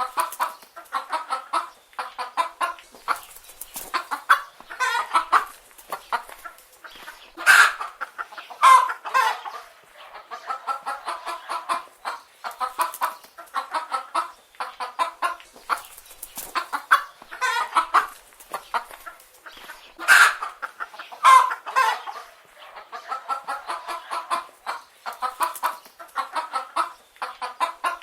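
Chicken hens clucking in a continuous run of short, rapid clucks, with a louder, higher call standing out twice, about a quarter of the way in and again about three-quarters of the way through.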